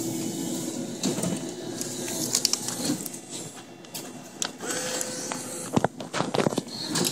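Claw machine's motors whirring as the claw moves, with a cluster of sharp clicks and knocks about six seconds in.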